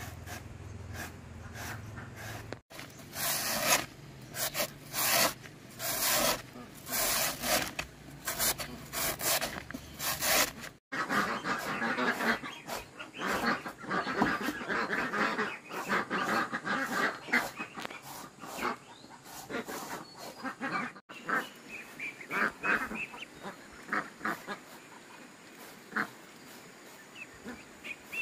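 A flock of farm poultry calling, mixed with quick noisy scuffling. The sound breaks off sharply three times.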